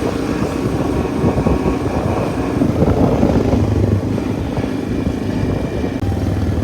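ATV engine running steadily under way, with a dense rushing noise over a low engine hum.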